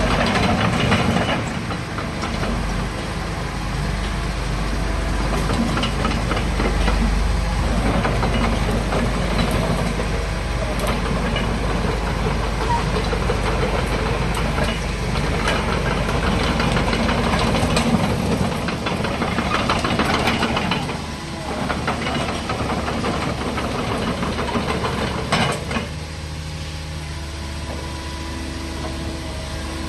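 Caterpillar 307.5 mini excavator's diesel engine running and working, its note rising and falling, with a sharp knock about 25 seconds in. It then settles to a quieter, steady run near the end.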